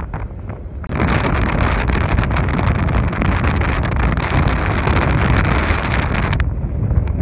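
Wind buffeting the microphone on a moving boat, over a low boat rumble. The rushing gets much louder about a second in and drops back shortly before the end.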